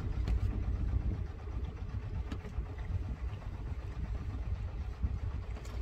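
Low, steady rumble of a small sailboat's inboard engine as the boat motors through the harbour under engine with its sails furled.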